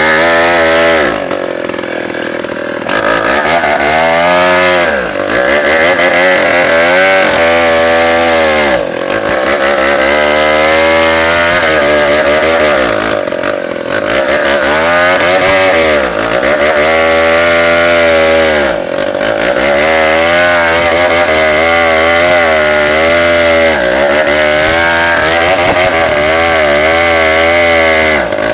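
Tecogold 700 two-stroke chainsaw felling a bengkirai hardwood tree. It runs at high revs, and its pitch repeatedly sags under load in the cut and then climbs back up.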